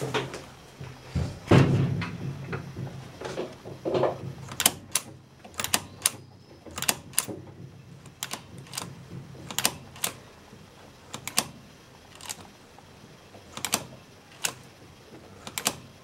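Sharp mechanical clicks, often in quick pairs and repeating roughly once a second, from an Ozone carburetor's throttle linkage being worked through the cable and snapping back against its stop. They follow a few heavier knocks near the start.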